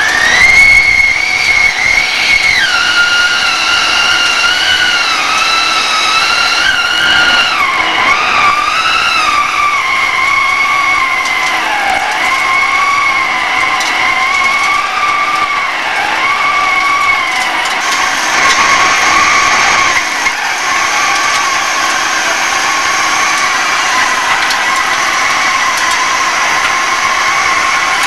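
Hegenscheid 105 underfloor wheelset lathe turning a steel railway wheel: the cutting tool squeals against the tread as chips peel off. The squeal is a high, wavering screech that drops in pitch in steps over the first half, then holds steadier.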